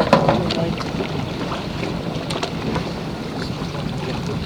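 Boat engine running slowly in gear, with wind on the microphone and a few sharp knocks, the loudest just after the start.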